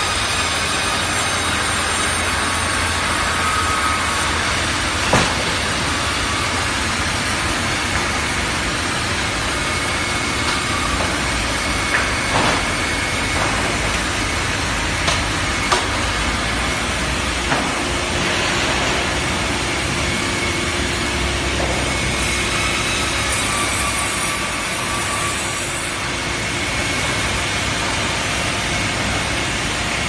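Large vertical log band saw and its carriage running while sawing timber: steady machine noise with a few sharp knocks.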